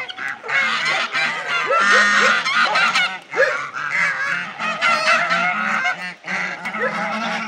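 A flock of domestic geese honking loudly, many calls overlapping in a continuous clamour.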